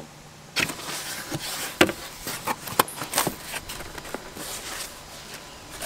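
Cardboard box being opened and handled by hand: rustling and scraping of the flaps and foam lining, with a few sharp knocks and taps.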